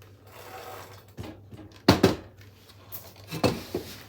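A few sharp knocks and clatter from a bicycle being handled as its rear wheel comes off, the loudest a double knock about two seconds in.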